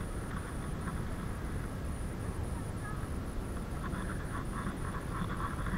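Bicycle ridden fast along a tarmac path: wind on the microphone and a low rolling rumble, with light rattling that picks up about four seconds in.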